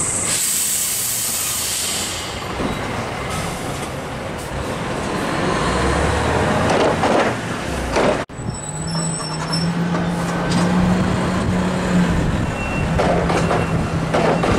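Heavy diesel container forklift working close by. A loud hiss of released air for about the first two seconds gives way to the engine running. After a sudden break a little past halfway, a steady engine drone with a humming tone.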